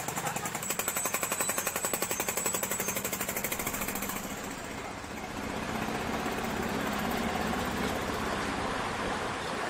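A motorcycle engine running with a rapid, even exhaust pulsing as the bike rides through shallow floodwater. About four seconds in this gives way to a steady rushing noise of floodwater around a wading auto-rickshaw.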